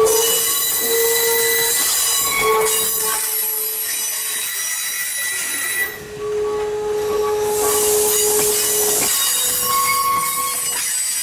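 Steel wheel flanges of heavyweight passenger coaches squealing on a curve as the train rolls slowly past, with several high squealing tones that break off and come back over the rumble and clatter of the wheels.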